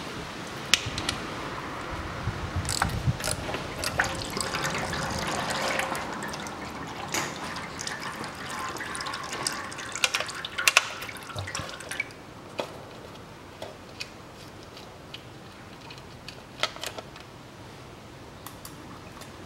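Leftover transmission fluid trickling and dripping from the edge of a Nissan Qashqai's CVT oil pan as the pan bolts are loosened, with scattered sharp metallic clicks from the socket tool. The trickle is heaviest in the first half and eases to lighter dripping after about twelve seconds.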